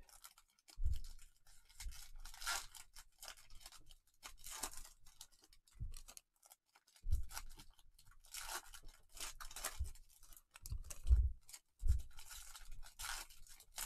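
Trading card packs and cards being handled: a run of short rustles and tearing wrapper sounds, with dull thumps of the cards and packs against the table.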